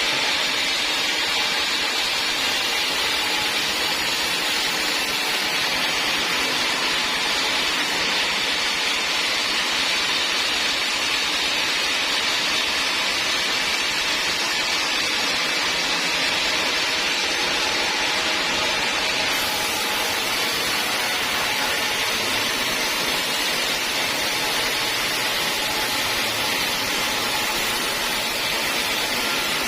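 Sawmill saw running through teak wood: a loud, steady, even noise that holds at one level throughout.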